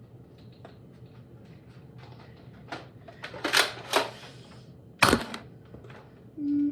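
Plastic clicks and clacks of a toy Nerf blaster being handled and loaded, several separate clicks with a louder, sharper snap about five seconds in. A brief low hum near the end.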